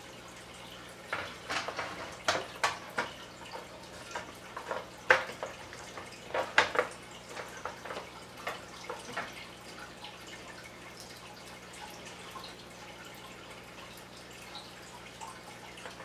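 Metal cover of an NVR recorder case being slid and seated onto its chassis: a run of clicks, knocks and scrapes, the sharpest two about a third of the way in, dying away after about nine seconds.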